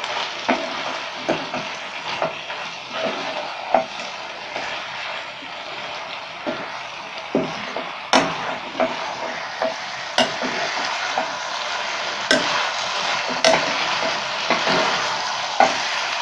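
Cauliflower Manchurian in thick sauce sizzling in a nonstick pan while a spatula stirs and tosses it, with irregular clicks and knocks of the spatula against the pan.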